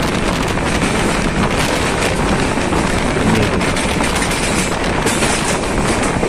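Express passenger train running at speed, heard from an open coach window: a steady rumble of wheels on rail with rapid, irregular knocks as the wheels run over points and rail joints.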